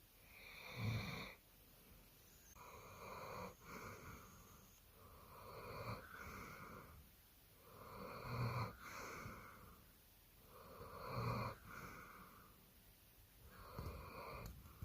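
A sleeping dog snoring in a slow, even rhythm, one breath about every two and a half seconds, a few of them with a low snort.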